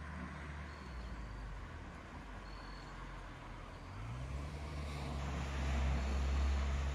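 A car engine running with a low hum that rises in pitch and grows louder from about four seconds in.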